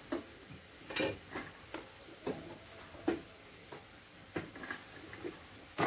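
Light, irregular clinks and knocks of pots and utensils being handled, about ten in all, over faint sizzling from a frying pan.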